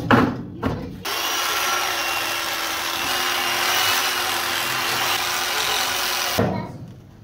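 Electric gyro knife running as it slices chicken off a vertical rotisserie spit: a steady motor whine that starts about a second in and cuts off near the end, after a few knocks of handling at the start.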